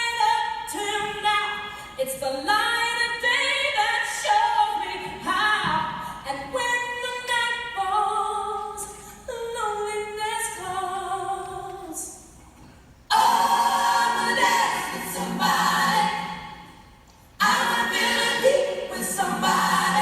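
Unaccompanied singing: a single line of held, stepwise notes, then about two-thirds in a louder, fuller passage of several voices together.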